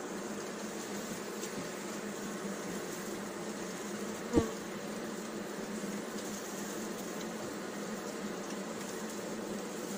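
Honeybee colony buzzing steadily in an opened hive, with a single sharp knock about four seconds in.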